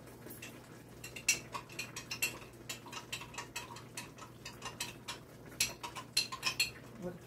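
Peppers, mushrooms and onions popping and crackling in a hot skillet: irregular sharp pops, several a second, over a low steady hum.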